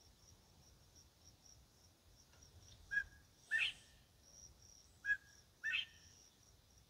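A bird whistling a two-note call twice, the second note of each pair sweeping upward, over a faint, steady, pulsing insect chirp.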